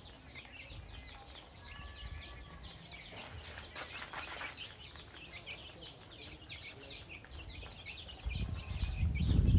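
A flock of baby chicks peeping continuously, many short high falling cheeps overlapping one another. Near the end a loud low rumble swells up and becomes the loudest sound.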